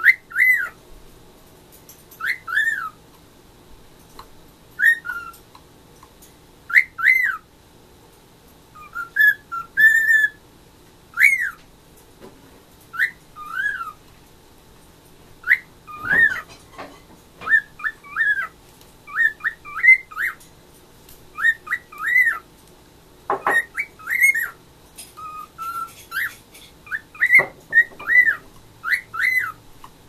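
Cockatiel whistling: a long run of short, high whistles, each a quick up-and-down glide, about a second apart and coming faster in the second half. These are the imitations of the whistles its owner makes to it. A few sharp knocks sound behind it.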